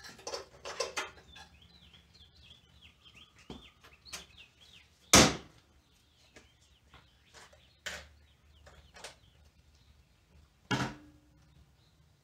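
Yamaha Riva scooter seat being closed, with one loud sharp knock about five seconds in, among lighter clicks and knocks of parts being handled. A bird chirps faintly in the background.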